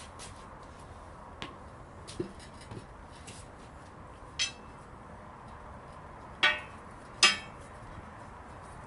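Metal clanks on a steel truck wheel rim while a tubeless truck tire is being mounted by hand. A few light taps, then three sharp ringing clanks, the last two loudest and under a second apart near the end.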